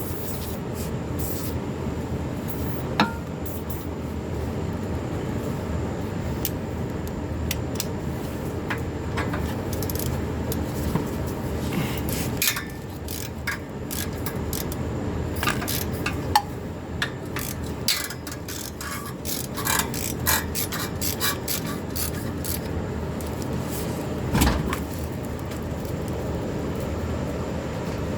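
Scattered sharp metal clinks and taps from hand tools at work on a car, over a steady low rumble. The clinks are busiest in the second half, with a few louder knocks.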